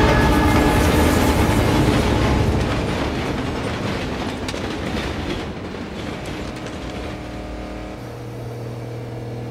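Train passing close by, a loud rushing rumble with clattering wheels that slowly dies away, the last of its horn cutting off right at the start. Near the end a low steady hum with a few higher tones comes in.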